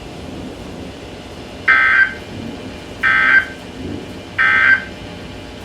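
Three short, identical bursts of the buzzy two-tone data signal (SAME) sent by NOAA Weather Radio, a bit over a second apart, heard through a weather radio's speaker. Sent right after the severe thunderstorm warning's message, these are the end-of-message code that closes the alert.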